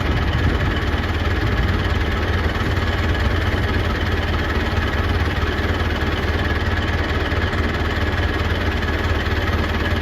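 Tractor engine running steadily at an even speed, a constant low drone with no change in pitch.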